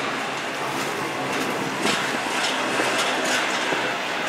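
Double-stack intermodal freight train's well cars rolling past: a steady rumble of steel wheels on rail, with a few sharp clicks from the wheels.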